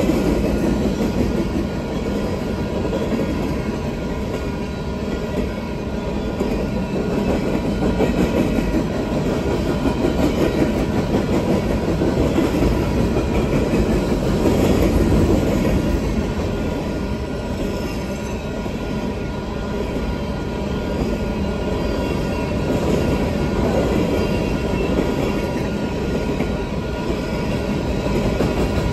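Loaded coal cars of a Union Pacific freight train rolling steadily past a grade crossing, their steel wheels running continuously on the rails.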